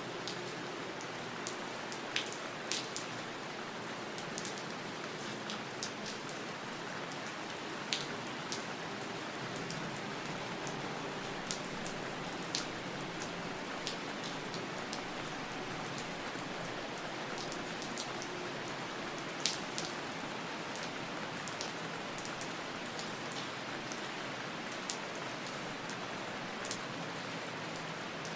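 Steady rain falling, an even hiss with scattered sharper drips and taps of individual drops landing close by.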